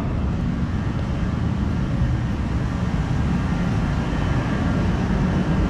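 Shop heater running with a steady, even rumble and blowing hiss.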